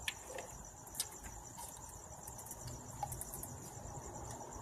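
Crickets chirping steadily in the background, a continuous high pulsing trill, with a few faint light clicks from handling.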